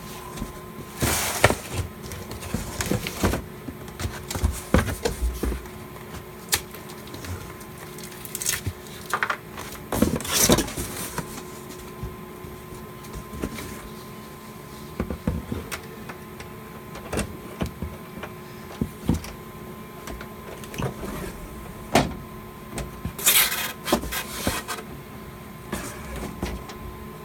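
Hands and tools working on a fire alarm control panel: irregular clicks, knocks and brief scraping and rustling, with a faint steady electrical hum and thin high tone underneath.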